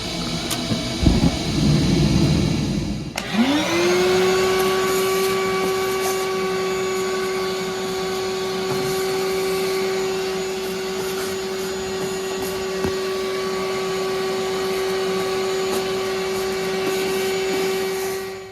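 A furnace draft inducer motor starting about three seconds in, its whine rising quickly to a steady pitch and running on, after a couple of seconds of rough rustling noise. This is the first step of a Ruud LP furnace's start-up sequence, run to test a newly fitted igniter.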